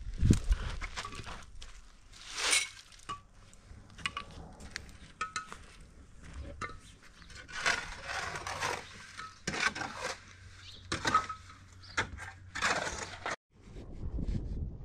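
Metal shovel scraping and clinking against hollow concrete blocks while mortar is spread along the top of a block wall: a series of short scrapes, a few with a brief metallic ring.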